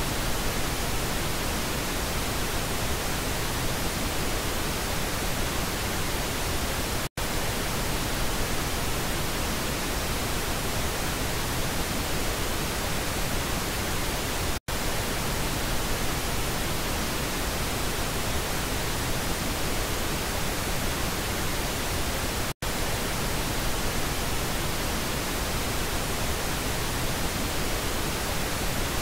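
Pink noise test signal for checking stereo speakers: a steady, even hiss, moved between the left and right channels. It is broken by three brief silent gaps, roughly every seven to eight seconds, where the signal switches channel.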